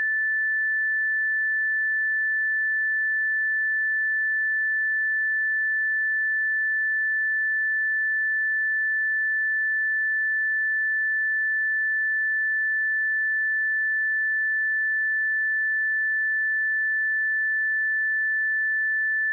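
A single steady 1755 Hz sine-wave test tone: one constant high-pitched pure tone at unchanging loudness.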